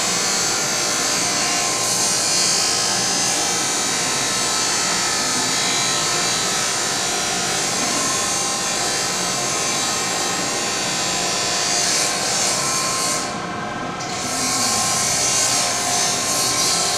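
Woodworking machinery running steadily in a wood shop, a dense mechanical din with a high hiss; the hiss drops out briefly about thirteen seconds in and then returns.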